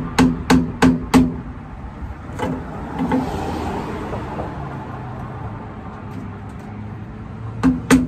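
Hammer tapping a screwdriver to work an old trailer tail-light out of its rubber grommet: a quick run of sharp taps, about three a second, that stops after a second or so, two single taps a little later, then a lull and a fresh run of taps near the end. Each tap rings briefly with a low tone.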